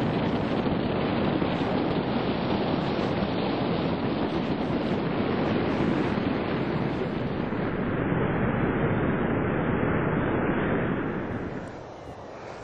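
Wind buffeting the camera microphone as a steady, loud rushing noise, easing off near the end.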